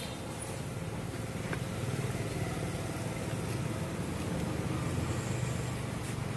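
Steady low rumble of nearby road traffic, a motor vehicle's engine running, swelling slightly a couple of times.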